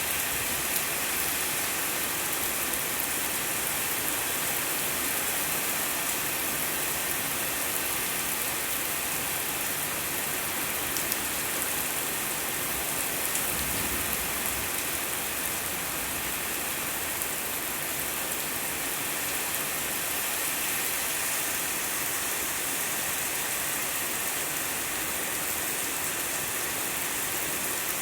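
Steady rain falling, a continuous hiss of drops hitting surfaces. A brief low rumble rises and fades about halfway through.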